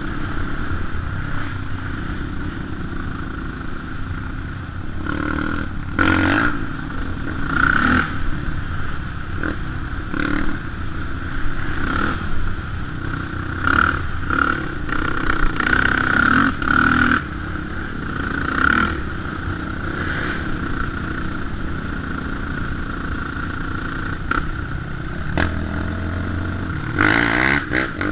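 Sport quad's single-cylinder 450 four-stroke engine running under way, surging up in revs every second or two as the throttle is worked, with clatter and knocks from the machine over rough dirt.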